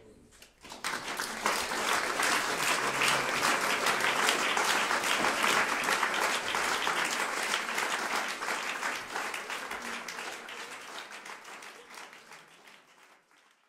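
Audience applauding at the close of a live chamber-jazz performance: the clapping starts about a second in, holds strong, then tapers off near the end and cuts out.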